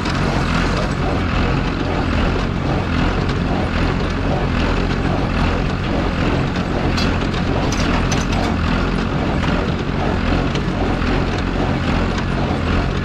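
John Deere 820 tractor running steadily while working a New Idea square baler in the hay field.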